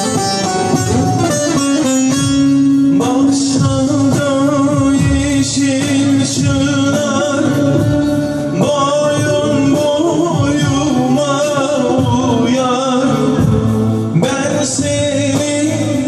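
Live Turkish folk song (türkü): a male singer with a plucked lute and accompanying instruments. The instruments play alone at first, and the ornamented, wavering vocal comes in about three seconds in.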